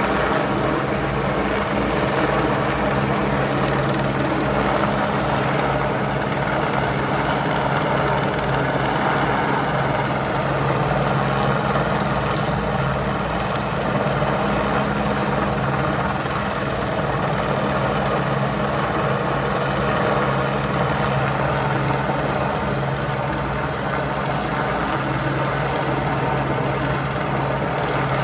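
Helicopter hovering overhead with a tower section slung beneath it on a long line: a steady rotor beat under an even engine hum, which holds at one level throughout.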